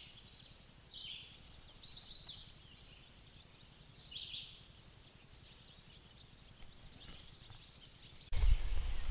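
A small songbird singing, a quick run of descending chirps about a second in and a shorter phrase around four seconds in, over faint outdoor background. Near the end a sudden loud low rumble cuts in.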